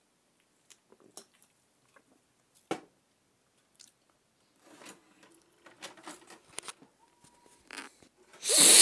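Handling clicks and knocks as a VHS tape is pushed into a VCR, then the VCR's mechanism running with a low steady whir as it loads the tape into play. A short, loud rush of noise comes near the end.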